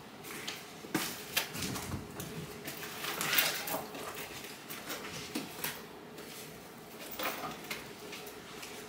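Handling noises from a small silver clutch purse and its strap: scattered clicks and knocks, with a denser rustling clatter around three seconds in.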